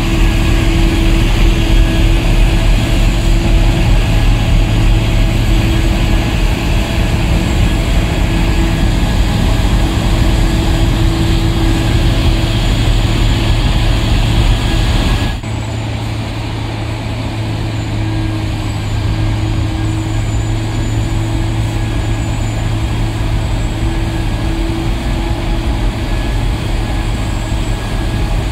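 A loader-mounted Larue snowblower and heavy diesel engines running steadily while snow is blown into a dump truck, with a steady droning hum. About halfway through the sound drops abruptly to a lower level and carries on steadily.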